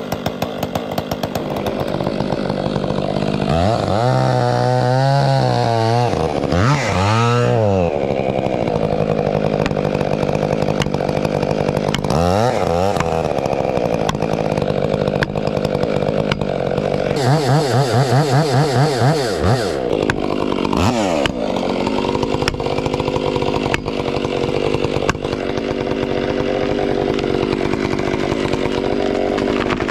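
Stihl 044 two-stroke chainsaw idling, then revved up and down several times before running steadily at high speed.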